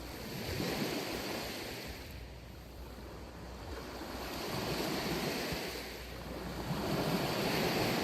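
Sea waves breaking and washing up a sandy beach. The surf swells and fades in slow surges, loudest about a second in, again around five seconds in, and near the end.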